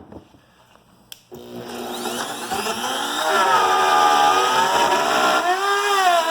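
Wood router switched on with a click about a second in, spinning up to a steady high whine over a couple of seconds, its pitch wavering near the end as it starts cutting a 6-inch hole through the board along a jig.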